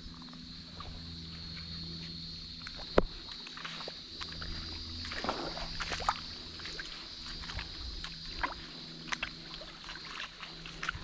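Shallow creek water trickling over a sandstone ledge under a steady, high-pitched insect drone, with scattered scuffs and ticks of footsteps on the rock and one sharp knock about three seconds in.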